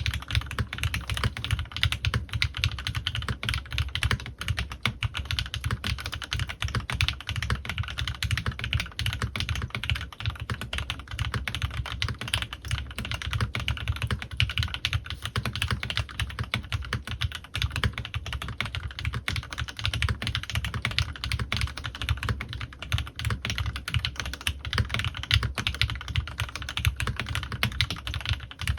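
Continuous fast typing on a CannonKeys Rekt1800 custom mechanical keyboard with Gateron Ink Black V2 linear switches lubed with Krytox 205g0 and PBT keycaps: a dense, unbroken stream of keystroke clacks.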